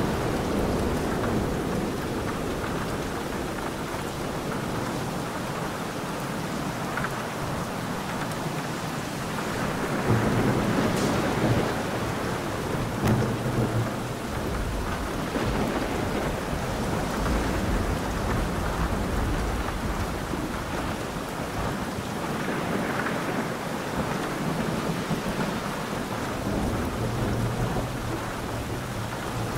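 Thunderstorm: steady rain with rolling thunder, the rumble swelling louder about ten seconds in and again near the end.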